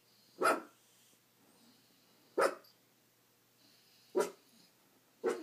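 A dog barking four times, single short barks spaced a second or two apart.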